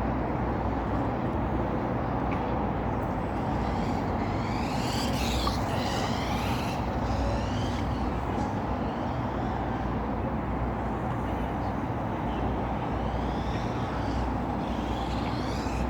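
Electric motors of a LEGO Technic RC buggy whining, rising and falling in pitch as it speeds up and slows down, mostly in two spells. Under them runs a steady rumbling noise.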